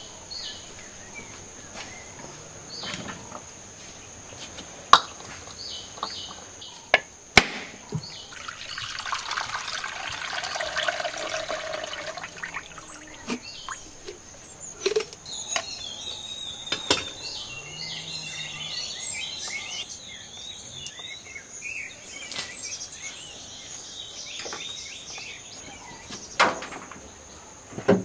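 Spine of a knife striking a husked coconut, a series of sharp knocks spaced seconds apart as the shell is cracked open. Birds chirp, an insect drones steadily at a high pitch, and there is a few seconds of water-like rushing about nine seconds in.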